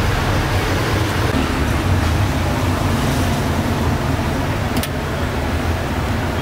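Steady rumble of passing street traffic, with a single light click about three-quarters of the way through.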